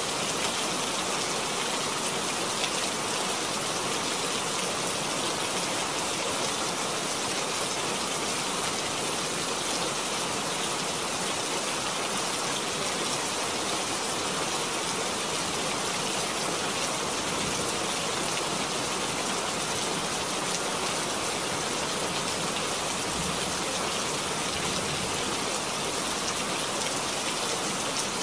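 Steady rain falling, an even hiss of drops with no breaks or changes.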